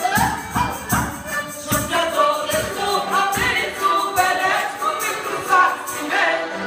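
A lively song sung by several voices over a steady percussive beat of sharp, evenly repeated strokes.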